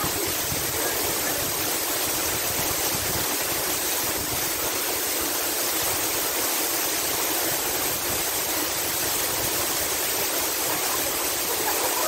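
Waterfall pouring into its pool: a steady, unbroken rush of falling water.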